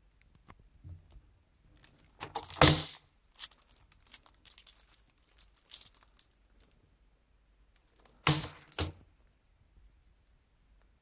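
A shrink-wrapped plastic Blu-ray case being handled and turned over, its cellophane wrap crinkling. There is a loud burst of handling about two and a half seconds in, smaller rustles after it, and two quick knocks about eight seconds in as the case is laid down.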